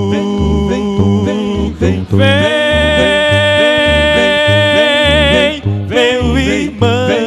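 Male vocal quartet singing a gospel song in close harmony over a pulsing bass accompaniment; a long high note is held from about two seconds in until past five seconds, wavering with vibrato as it ends.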